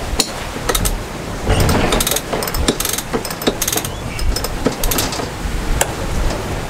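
Sailboat cockpit winch cranked by hand with a winch handle, its pawls ratcheting in uneven runs of sharp clicks as a line is hauled in on the drum.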